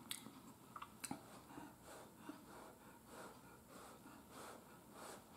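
Near silence: a person's faint breaths at a forkful of hot food, with a few faint clicks near the start.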